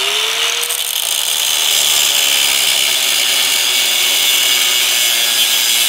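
Angle grinder with a thin cut-off disc slicing through a steel bracket. The motor's whine rises as it comes up to speed at the start, then holds steady under a loud, high-pitched hiss of the disc cutting the steel.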